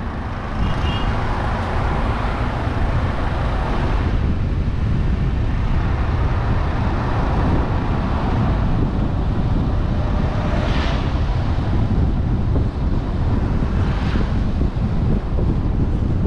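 Steady road and wind noise from a car driving along a road: a low rumble with wind on the microphone, and two brief louder rushes about eleven and fourteen seconds in.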